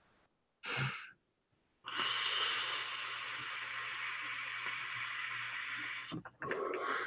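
A long drag on an e-cigarette: a steady airy hiss for about four seconds as air is pulled through the atomizer, then a few short breaths near the end.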